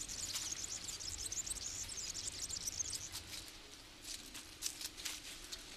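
Faint summer countryside ambience: dense high-pitched chirping, mostly in the first half, with a few soft ticks or rustles.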